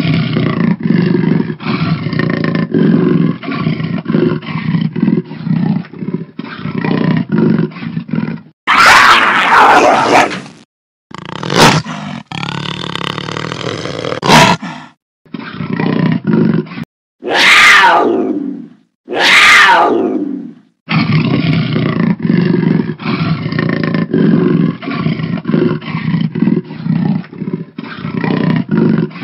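Big-cat calls spliced together from several recordings: long stretches of rapid, rough, pulsing growls, broken in the middle by a short snarl, a drawn-out growl and three loud roars that each fall in pitch. The clips change with abrupt cuts.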